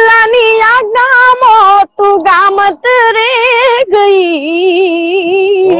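A woman singing a Gujarati charaj, a devotional folk song to the mother goddess, solo and without accompaniment. She sings in ornamented, sliding phrases and ends on a long held note that wavers up and down.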